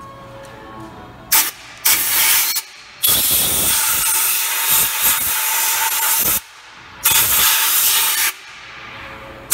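Compressed air hissing from an air blow gun blowing out an open rear differential housing, in several blasts of varying length, the longest about three seconds.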